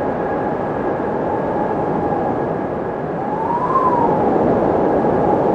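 Wind blowing through a cavern: a steady rush with a thin whistling tone that rises and falls in pitch once, about three to four seconds in.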